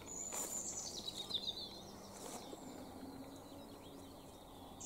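Small birds chirping and singing with high, quick notes over a faint steady outdoor background, with a couple of brief scuffs.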